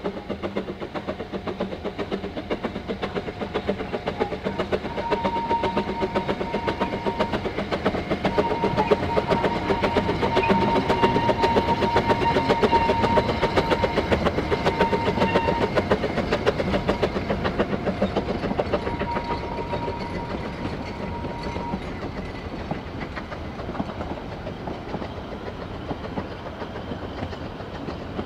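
Narrow-gauge saddle-tank steam locomotive working a train past, its quick exhaust beats growing louder to a peak about halfway through. The beats fade as the coaches roll by with a rhythmic wheel clatter. A steady high tone sounds on and off through the middle.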